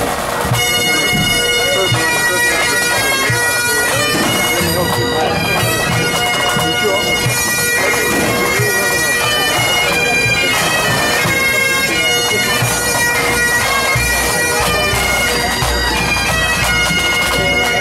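Full pipe band playing a medley: Highland bagpipes with their steady drones under the chanter melody, and snare and bass drums beneath.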